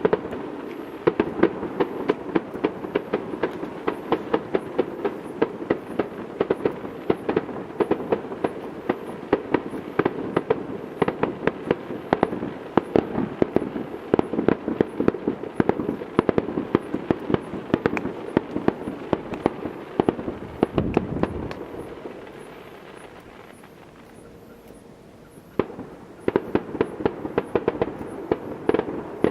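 Fireworks display: rapid crackling and popping of many aerial shells, with a deeper boom about two-thirds of the way in. The crackle then dies away for a few seconds and starts again sharply near the end.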